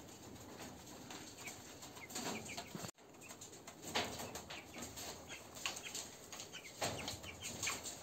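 Three-week-old broiler chicks peeping softly now and then, short cheeps scattered through the flock, with a few faint knocks.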